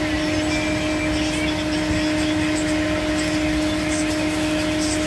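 Steady machine hum with a constant low tone, running unchanged throughout. A few faint crinkles of a plastic snack wrapper being handled sound over it.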